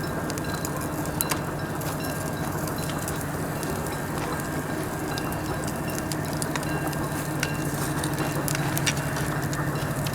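Pork loin sizzling steadily on a stainless-steel grill grate over a pine-wood fire, with scattered small crackles.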